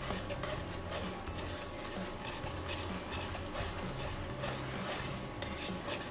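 Black tongs stirring and tossing spaghetti in tomato sauce in a non-stick frying pan: a run of quick scrapes and clicks against the pan, with the wet pasta and sauce squelching.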